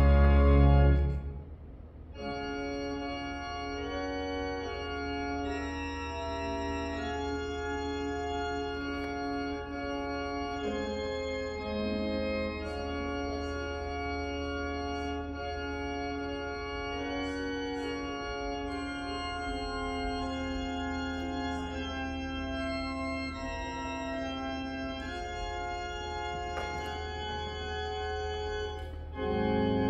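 Church organ playing sustained chords over a steady held bass note. A loud, full passage breaks off about a second in and gives way to a softer one, which swells loud again just before the end.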